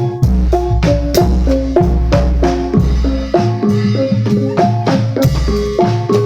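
Javanese gamelan ensemble playing: metallophones strike a quick melody of ringing notes, about three a second, over recurring deep low notes and sharp drum strokes.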